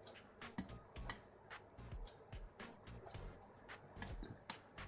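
Small metallic clicks and ticks of a lock pick working the pin stacks of a six-pin Yale lock cylinder under tension, at an irregular pace, with a sharper click near the end.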